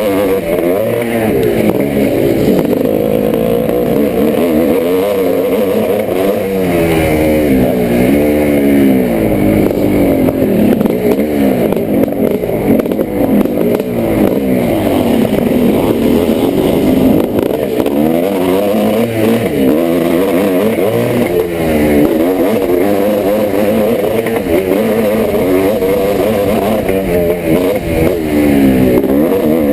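1986 Yamaha YZ490's single-cylinder two-stroke engine under race throttle, its pitch climbing and dropping over and over as it revs out, shifts and backs off.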